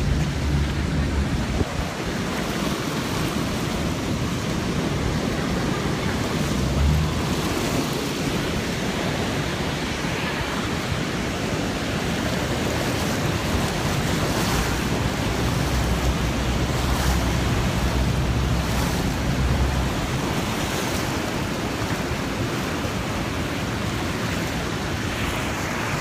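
Steady rushing roar of the Rhine Falls and the turbulent river water around the boat. Wind gusts on the microphone add low rumbles a few times.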